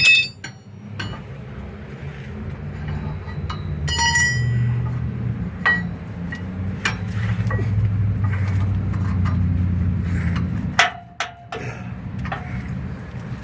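Metal tools clinking and ringing briefly a few times, with scattered knocks, over a steady low engine hum that stops suddenly about eleven seconds in.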